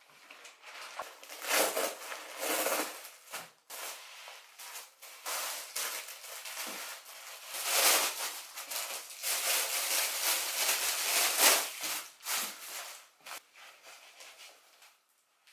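Plastic packaging crinkling and rustling in irregular bursts as a plastic mailer bag is torn open and goalkeeper gloves are slid out of clear plastic sleeves, dying down near the end.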